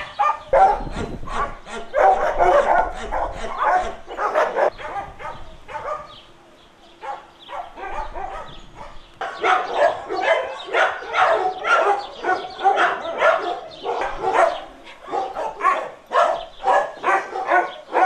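Dogs barking over and over in short, quick barks, with a brief lull about a third of the way in before the barking picks up again, dense and continuous.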